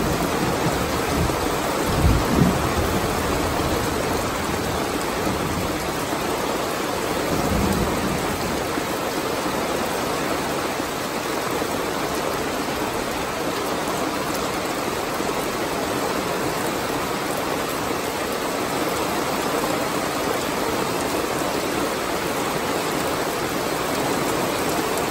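Heavy rain falling steadily in a thunderstorm, with low thunder rumbles about two seconds in and again around eight seconds.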